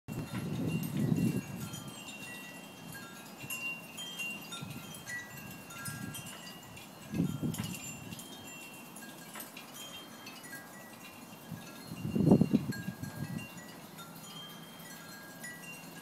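Backyard wind chimes ringing in the wind, scattered high notes sounding irregularly one after another. Gusts of wind buffet the microphone three times: near the start, about seven seconds in, and most loudly about twelve seconds in.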